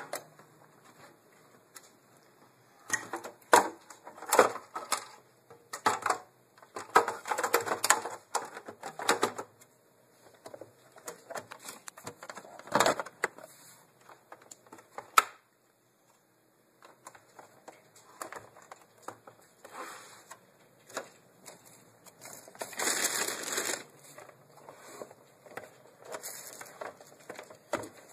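Parts and tools being handled at close range: irregular clicks, taps and short crackling rustles, with a moment of complete silence about fifteen seconds in.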